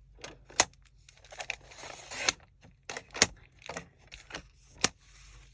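Scissors cutting paper to trim an edge: several sharp snips among the rustle and scrape of the paper being handled.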